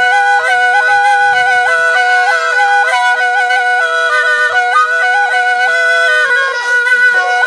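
Jori (alghoza), the Saraiki paired duct flute, being played: one pipe holds a steady drone while the other plays a quick folk melody in short stepping notes above it, with a downward slide near the end.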